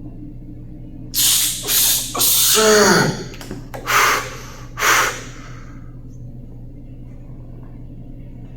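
A man's forceful exhalations of effort during a weightlifting set: five hard, breathy blows between about one and five seconds in, the third drawn out into a falling groan.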